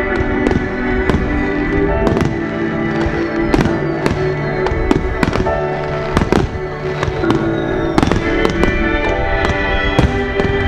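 Fireworks bursting in quick, irregular succession, sharp bangs several times a second, over steady background music.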